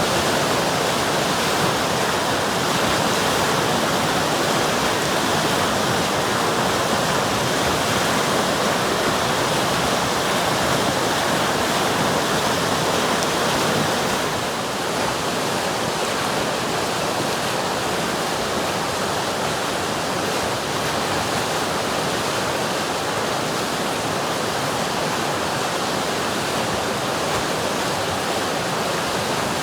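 River water flowing and rushing steadily, an even unbroken noise of running water. It eases off slightly about halfway through.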